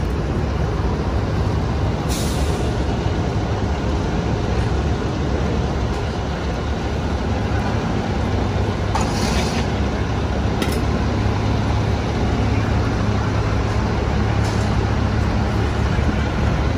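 Heavy diesel trucks idling with a steady low rumble, broken by short hisses of air brakes releasing, about two seconds in, around the middle and again near the end.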